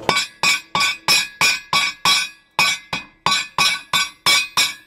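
Hand hammer striking white-hot steel on an anvil, setting a forge weld on its second heat: steady ringing blows, about three a second, with one short pause a little before the halfway point.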